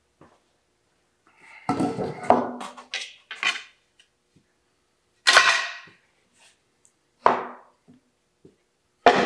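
Thick, hard oak boards being laid and knocked down onto a metal-topped workbench: a stretch of scraping and clattering, then three sharp wooden knocks about two seconds apart, each with a short ring.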